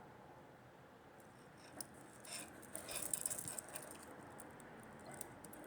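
Faint handling sounds of a stainless steel wristwatch: a few small clicks and light metallic rattles, with a short cluster of them about three seconds in.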